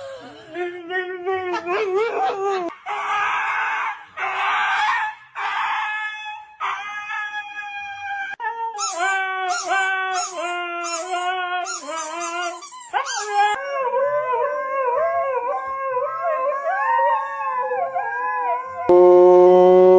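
A dog howling and whining in drawn-out, wavering calls that rise and fall in pitch, phrase after phrase. Near the end a louder, steady held tone cuts in.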